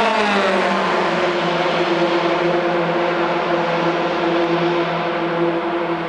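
Formula 3 car's two-litre four-cylinder engine at high revs going past at speed. Its pitch drops sharply as it passes, then holds at a steady lower note while the sound slowly fades as the car moves away down the oval.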